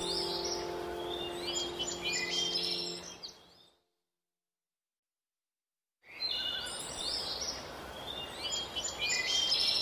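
Birdsong on a background soundtrack: chirps over low held tones that fade out a little after three seconds. After about two and a half seconds of dead silence, the chirping starts again.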